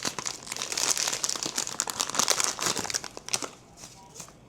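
Packaging of a Pop Mart blind box crinkling and tearing as it is opened by hand: dense crackling for about three seconds, then fainter rustles near the end.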